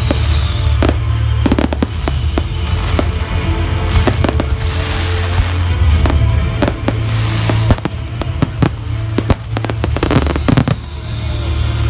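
Aerial fireworks display: a rapid, uneven series of shell bursts and bangs, with crackling shells in the middle and a faint falling whistle at the start and again near the end.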